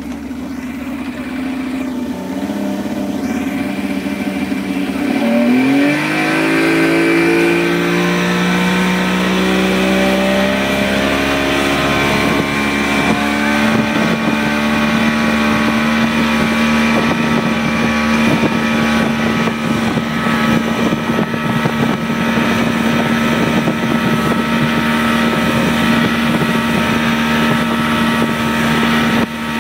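Motorboat engine towing a banana boat. It speeds up about five seconds in, its pitch rising for a few seconds, then runs steadily at high speed over a rushing noise.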